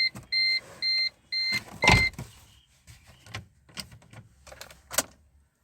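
Maruti Ritz dashboard warning chime beeping rapidly, about three short beeps a second, and stopping about two seconds in with a knock. A few light clicks and taps follow.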